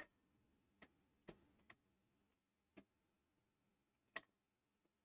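Faint, scattered light clicks and taps of small parts and tools being handled, about six in five seconds, the loudest about four seconds in.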